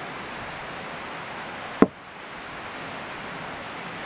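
Steady background hiss with one sharp click a little under two seconds in, after which the hiss drops briefly and then comes back.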